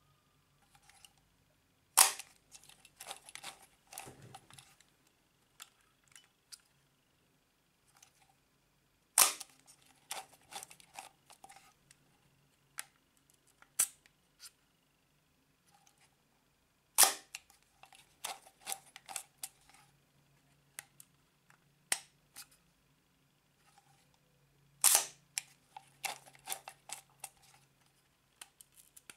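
Zorki 4 rangefinder's cloth focal-plane shutter releasing with a sharp click four times, about eight seconds apart. Each release is followed by a couple of seconds of smaller clicks as the camera is wound and its shutter-speed dial is handled.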